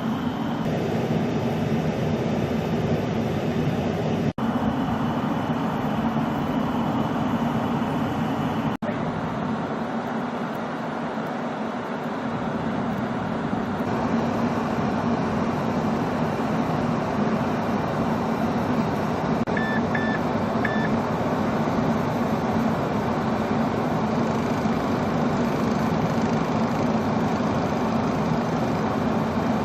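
Steady mechanical rumble of a heavy vehicle running, with three short high beeps about twenty seconds in.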